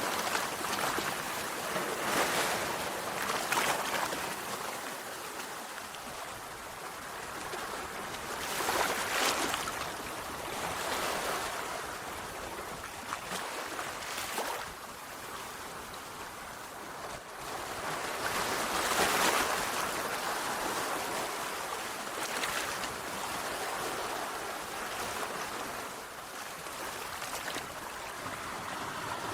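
Sea waves breaking and washing on the shore, a continuous surf hiss that swells with each wave every few seconds, the strongest waves about nine and nineteen seconds in.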